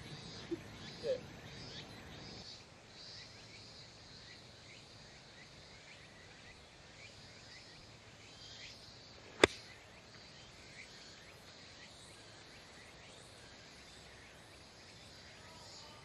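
A single sharp click of a 60° wedge striking a golf ball on a short approach shot, about halfway through. Faint chirping runs underneath.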